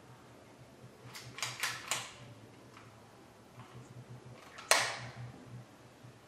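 The safety on the rear of an airsoft SCAR 40mm grenade launcher being worked by hand: a quick run of small clicks about a second in, then one sharper, louder click about three-quarters of the way through.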